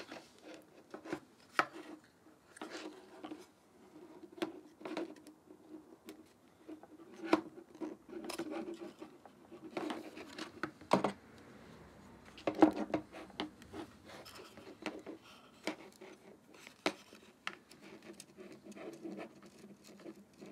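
Hands and a small tool working on a stripped-down Nikon Z50 camera body: scattered, irregular small clicks, taps and scratches of plastic and metal parts being handled and prised.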